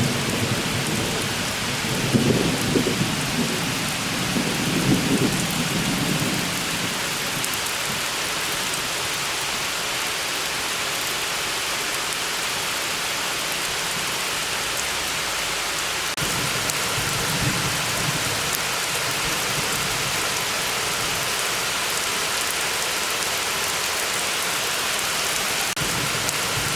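Summer rain falling steadily, with thunder rumbling during the first six seconds and again more faintly about two-thirds of the way through.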